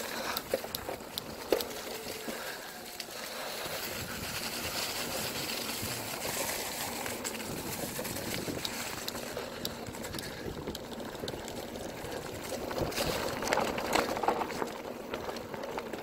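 Bicycle tyres rolling over a dirt trail covered in dry fallen leaves: continuous rustling and crackling, with scattered sharp clicks and rattles from the bike.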